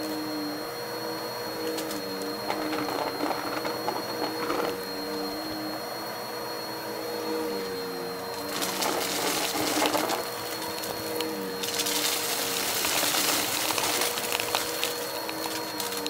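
Numatic Hetty cylinder vacuum cleaner running with a steady motor whine, its lower pitch wavering up and down. About eight seconds in, and again about twelve seconds in, a louder rushing hiss rises over it as it sucks up the test mess.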